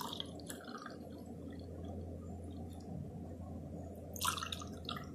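Thick falsa sharbat poured from a jug into drinking glasses: faint pouring and dripping of liquid, with brief louder moments at the start and about four seconds in, over a steady low hum.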